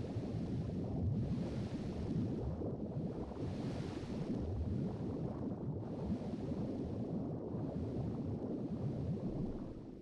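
Underwater ambience: a steady watery rumble with a hiss above it that swells and eases every second or two.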